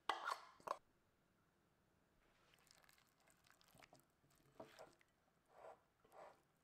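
Hands tossing accordion-cut cucumbers in chili-oil dressing in a glass bowl: a few soft, wet squishes and rustles. Two short sharp sounds come right at the start.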